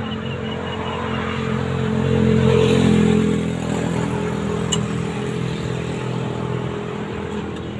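A motor vehicle's engine passing on the road, growing louder to a peak about two to three seconds in and then fading, over steady traffic hum.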